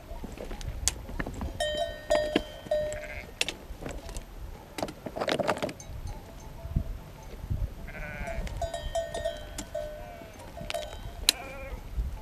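Bells on a flock of sheep clanking irregularly in clusters, with a sheep bleating twice, about two-thirds of the way in and near the end.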